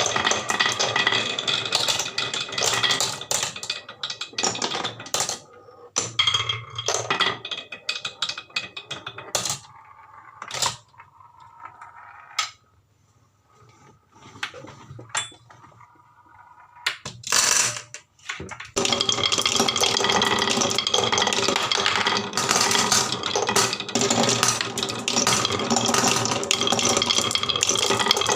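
Marbles rolling and clattering down a HABA wooden marble run, a dense run of clicks and knocks. Near the middle it thins to a few scattered clicks with a brief lull, and about two-thirds of the way through the dense clatter starts up again.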